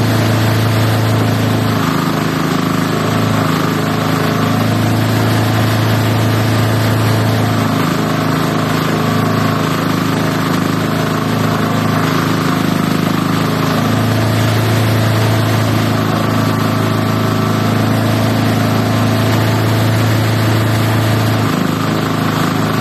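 Multi-purpose chopper-shredder machine running: a loud, steady mechanical drone whose low hum strengthens and eases every few seconds.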